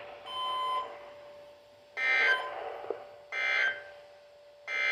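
Emergency Alert System end-of-message data bursts from a NOAA Weather Radio broadcast: three short, harsh warbling bursts of digital tones about 1.3 s apart, closing the drill message. They follow a brief tone about a third of a second in, over a faint steady hum.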